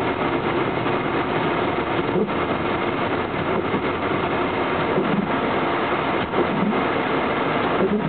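Steady car-cabin noise from a car driving slowly through deep snow: engine and tyres pushing through the snow.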